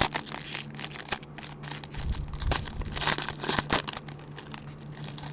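Trading card pack being torn open by hand, its wrapper crinkling and crackling in quick clusters, heaviest at the start and again around the middle, over a steady low hum.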